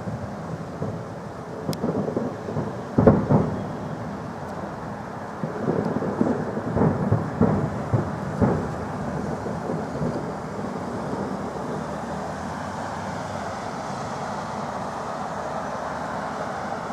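Fireworks salute: deep booms of shells going off, the loudest about three seconds in and a quick run of booms between about six and nine seconds, each trailing off in a rumbling echo. After that only a steady low rumble remains.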